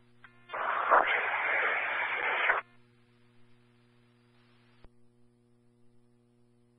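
Police scanner radio channel: a burst of static lasting about two seconds starts about half a second in, then a fainter hiss that ends in a click, over a steady electrical hum.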